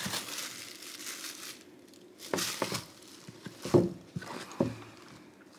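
Crinkling and rustling as belongings are handled while packing a bag, followed by a few light knocks as things are moved and set down.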